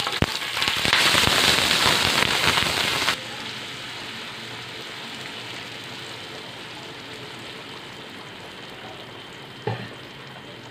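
Hot oil and frying garlic sizzle loudly as blended tomato is poured into the pan. About three seconds in the sizzle drops sharply to a quieter, steady hiss as the tomato starts to cook. There is a single knock near the end, like the wooden spatula against the pan.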